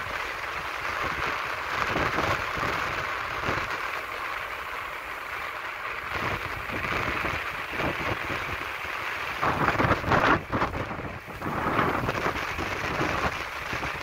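Wind rushing and buffeting over the microphone of a camera moving fast downhill, a steady rushing hiss with uneven low gusts, loudest about ten seconds in.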